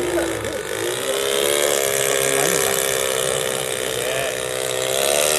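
Radio-controlled aerobatic model airplane hovering nose-up in a prop hang: its motor and propeller give a steady drone. The pitch wavers slightly, dipping about half a second in and rising a little near the end.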